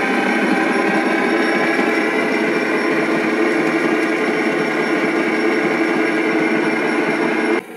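Steady running noise of a passing freight train, a dense, even mechanical rumble that cuts off suddenly near the end.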